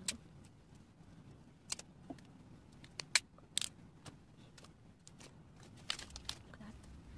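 Clear wrapping film being torn and peeled off a boxed iPhone, giving scattered sharp crackles and clicks, with a cluster about three seconds in and another near the end, along with light handling of the box.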